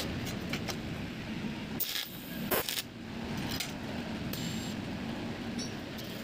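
Light metallic clinks and scrapes of stainless-steel square tubing and a welding earth clamp being handled on a concrete floor, with a cluster of louder clinks about two seconds in. A steady low hum runs underneath.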